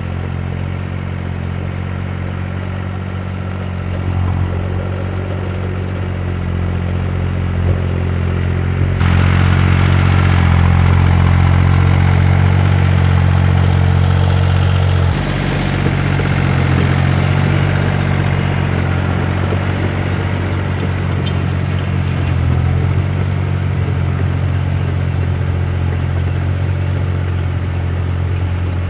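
Yanmar F215 compact tractor's diesel engine running steadily while it pulls a rotary tiller. The engine sound gets louder and brighter about a third of the way in, then drops back about halfway through.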